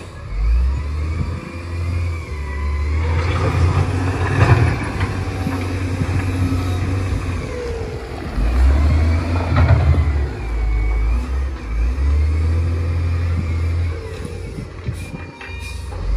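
Heavy diesel machinery engines running and revving in uneven surges, with a deep rumble that swells and drops every second or two.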